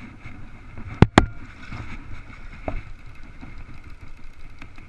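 River water flowing steadily, with two sharp knocks close together about a second in and a softer one near the middle.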